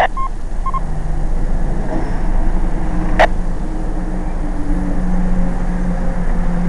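Car engine idling steadily, with a low hum that firms up about a second in. Two short beeps sound right at the start, and a single sharp click comes about three seconds in.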